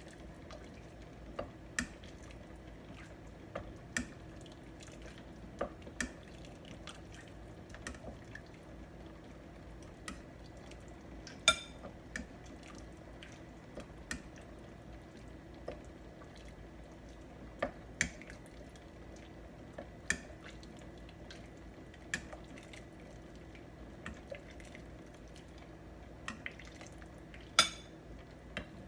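Metal ladle clinking against a stainless steel soup pot and a ceramic bowl while beef-bone soup is ladled out, with drips and small splashes of broth. The clinks are scattered, one every second or two, two of them louder: about eleven seconds in and near the end.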